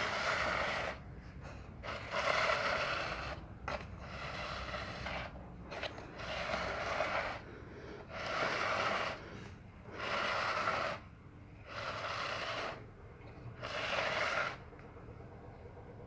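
A cat's breathing, heard close up as a soft, noisy breath roughly every two seconds, about eight in all, as the cat lies still and does not respond to being called.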